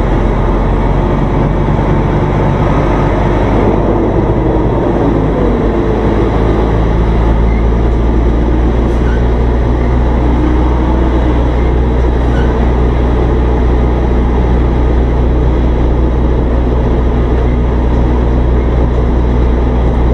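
Semi truck's diesel engine running at low revs with a steady low drone as the tractor-trailer creeps backward into a parking space.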